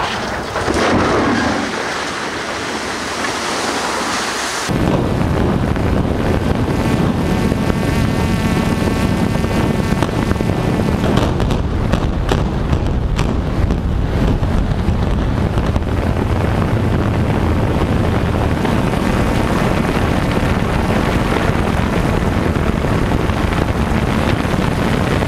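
A concrete tower toppling in a controlled demolition, with a rumble and a louder crash about a second in. About five seconds in the sound switches abruptly to a loud, dense, steady roar of wind noise and collapse as a high-rise implodes, with a few sharp cracks in the middle.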